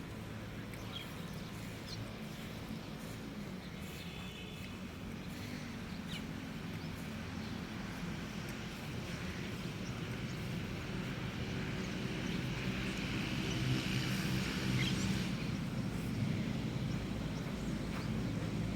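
A group of birds calling, short faint chirps over a steady low hum; the chirping thickens and gets louder about two-thirds of the way in.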